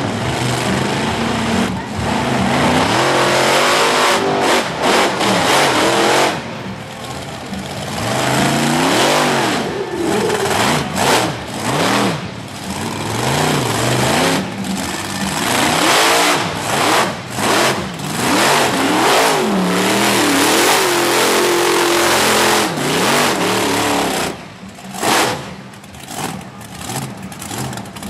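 Monster truck engines revving hard during freestyle runs, the pitch swinging up and down over and over, with a few short drops in level near the end.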